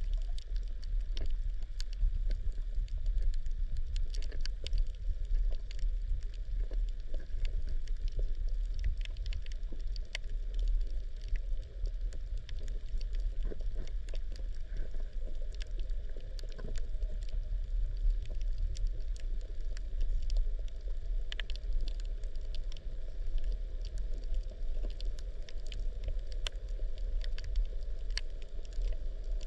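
Underwater sound recorded through a camera: a steady low rumble of water moving against the camera, with scattered sharp crackling clicks from the reef.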